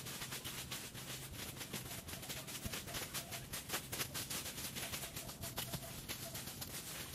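Dense, irregular rustling and crackling, like dry material being handled.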